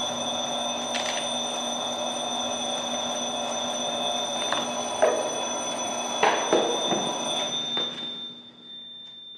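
Elevator alarm bell ringing steadily while the doors are held open by an obstruction, with a few knocks about five to seven seconds in; it fades away near the end.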